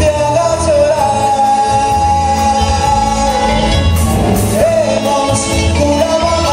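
A male lead singer sings live into a handheld microphone, backed by a band with drums, amplified through the hall's sound system. He holds one long note for about two seconds, then starts a new phrase about four and a half seconds in.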